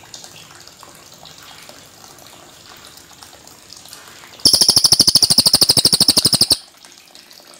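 A cililin songbird giving a loud, rapid rolling trill of evenly repeated high notes, starting about halfway through and lasting about two seconds, before stopping abruptly. Underneath it is a steady watery hiss with faint scattered chirps.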